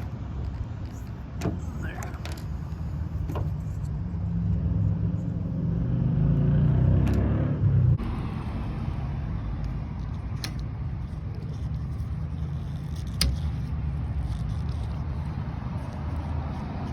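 A steady low rumble of road traffic, with a vehicle passing by that swells and fades about five to eight seconds in. A few sharp clicks sound over it.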